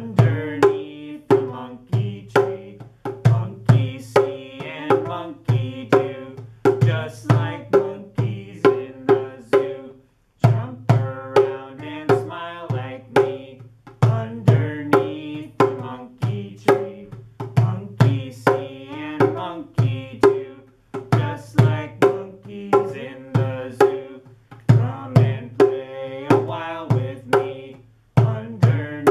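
Djembe hand drum struck in a steady beat, about two strokes a second, with voices singing a simple children's song over it; the music breaks off briefly twice.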